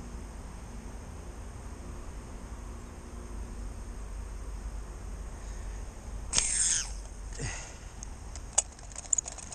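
Insects chirring steadily over a low outdoor rumble. About six seconds in, a shot from a fishing slingshot: a sharp release, then fishing line whirring off the reel in two falling sweeps, followed by a few sharp clicks near the end.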